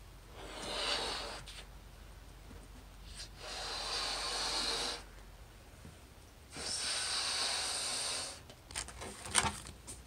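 A latex balloon being blown up by mouth: three long, breathy puffs of air into it, each one to two seconds long with short pauses between. Near the end, a few sharp clicks as the balloon is handled.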